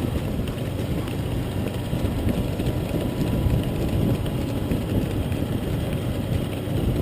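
Steady low rumble of a vehicle engine running, mixed with road and wind noise.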